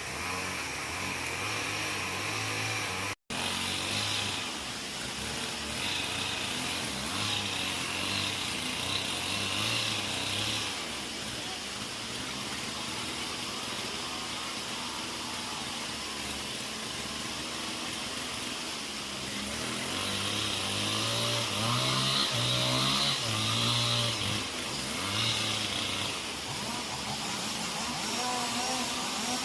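Chainsaw engine running, revving up in two longer spells between quieter running, with a momentary dropout about three seconds in.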